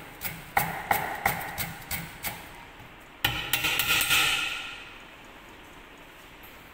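Cleaver chopping on a thick wooden chopping board, about three steady chops a second, each with a short metallic ring. About three seconds in the chopping stops and the blade scrapes across the board with a louder ringing scrape that fades away.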